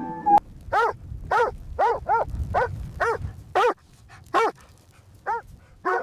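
A German Shepherd barking, about ten short barks each rising and falling in pitch, unevenly spaced with a longer pause past the middle, over a low rumble.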